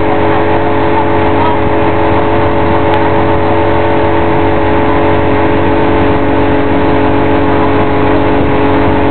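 Motorboat engine running steadily at towing speed, a constant drone with no change in pitch, over a rush of wind and water.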